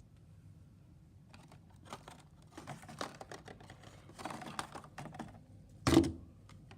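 Scattered light clicks and rustling from objects being handled close to the microphone, with one louder thump near the end.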